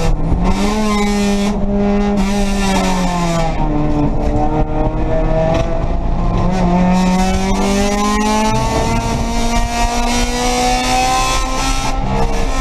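Race car engine heard from inside the stripped cabin on track, its pitch dropping for a couple of seconds near the start as the car slows, then climbing again and rising steadily through the second half under acceleration.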